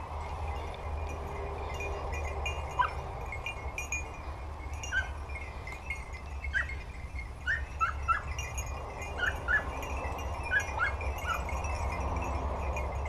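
Young hunting dogs yelping in the distance, a series of short high yelps mostly through the middle, with the tinkle of their collar bells and a steady low rumble underneath.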